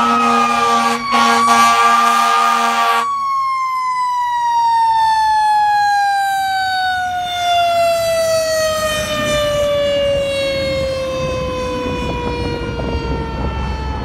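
Fire engine's Federal Q mechanical siren and air horn. The air horn blows together with the wailing siren for about the first three seconds, then stops. The Q's whine then winds slowly down in pitch while the truck's low rumble passes.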